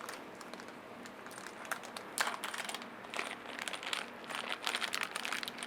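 Light clicks and small rattles of a motherboard being handled and seated against the case's standoffs and I/O shield, a few ticks about two seconds in and a busier run of them in the second half.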